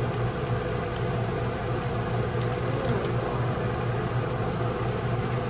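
Steady low mechanical hum, like a room fan or air-conditioning unit running, with faint crinkles of a clear plastic sleeve being handled.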